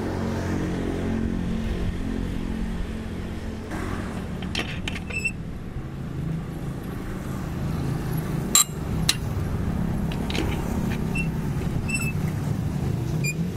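Metal clinks and clicks of a cross-shaped lug wrench turning the wheel nuts on a two-wheel tractor's wheel hub, with one sharp clank a little past halfway, over an engine running steadily.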